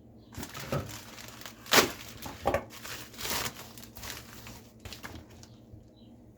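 A shipping package being opened by hand: crinkling, rustling packaging with a few sharp tearing sounds, loudest about two seconds in.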